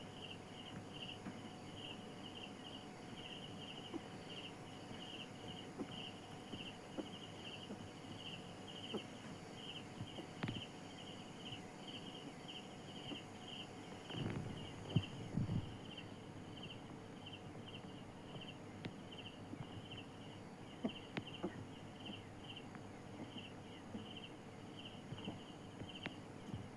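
An insect chirping steadily in short, evenly repeated pulses, a few per second, with faint clicks of handling. About halfway through there is a short, louder burst of rustling and bumps.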